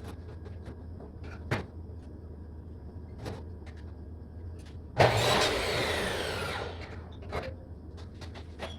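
An electric power saw runs briefly about five seconds in, starting suddenly and sliding down in pitch as the blade winds down. Scattered knocks and clicks of handling come before and after it, over a steady low hum.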